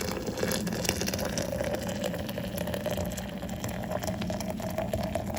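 Hot water being poured into a French press coffee maker: a steady pouring gush whose pitch rises slowly as the carafe fills.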